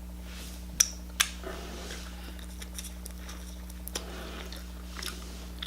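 Close-miked eating sounds of a person having a shrimp sushi roll: two sharp clicks about a second in, then soft wet chewing, with another small click near the end, over a steady low electrical hum.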